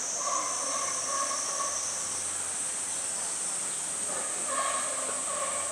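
Cicadas shrilling steadily in summer heat, a high continuous sizzle, with a second, lower buzz coming in for a couple of seconds near the start and again near the end.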